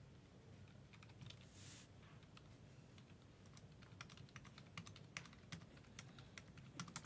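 Faint typing on a computer keyboard: a few keystrokes about a second in, then a quick irregular run of key clicks through the second half.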